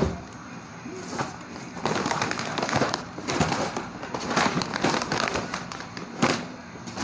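Plastic bags crinkling and rustling as they are handled and shifted on a table: a black plastic bag and clear bags of crackers and chips. Dense crackling starts about two seconds in, with a sharp crackle near the end.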